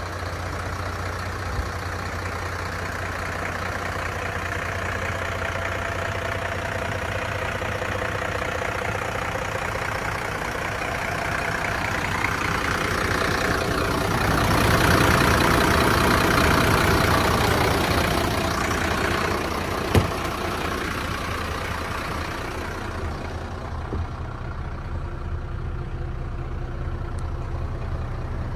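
Mercedes-Benz Atego 1323 truck's six-cylinder turbodiesel idling steadily, louder for a few seconds midway, with a single sharp click about two-thirds of the way through. Near the end the idle sounds duller, heard from inside the cab.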